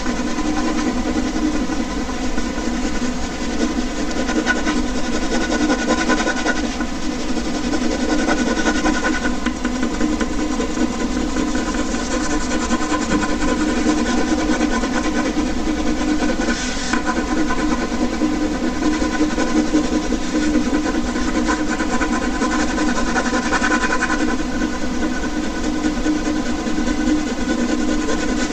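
Air conditioner running: a steady hum made of several held tones over a constant whirring noise.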